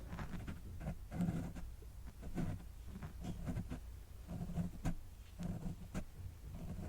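Close-miked ASMR handling of art tools: soft, irregular brushing and rustling strokes with a few light clicks and taps.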